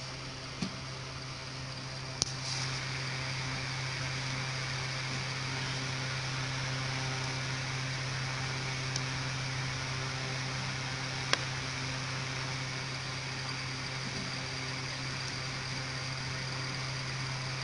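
Steady low hum and hiss, with a few sharp clicks from a small screwdriver and screws on a handheld radio's metal frame as it is screwed back together. The loudest clicks come about two seconds in and again about eleven seconds in.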